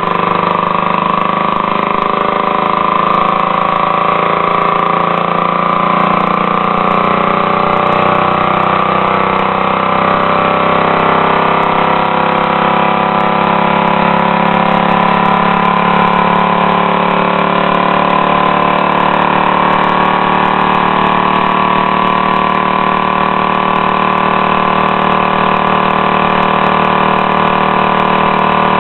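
Leaf blower engine converted to a compressed-air motor, running steadily on air through a timed valve. Its pitch wavers through the first half and then holds steady.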